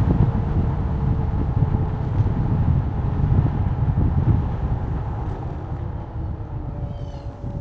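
Low, steady rumble of a moving vehicle, easing off slightly near the end.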